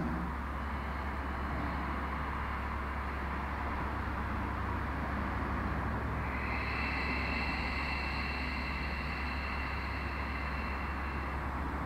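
Steady low hum and hiss of background noise, with a faint high whine of two steady tones coming in about halfway and stopping near the end.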